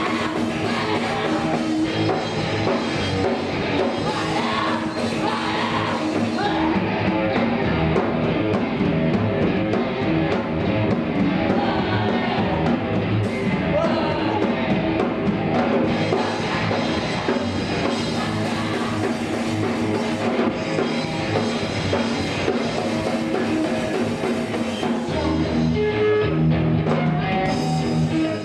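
Loud rock music with a drum kit, guitar and singing, playing without a break.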